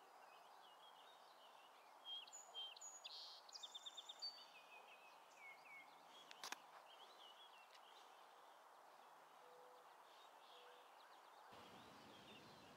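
A song sparrow singing once, about two seconds in: a few separate notes, then a fast trill, over a faint steady outdoor hiss. A single sharp click comes about halfway through, and a few faint bird notes follow.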